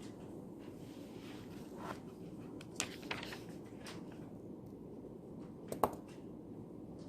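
Quiet study-library room tone: a steady low hum with a few small clicks and taps, the two sharpest about three and six seconds in.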